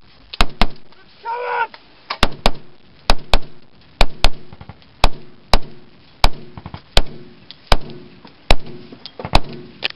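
Rifle fire: sharp, loud shots, many in quick pairs, coming about once a second. One short shout about a second and a half in.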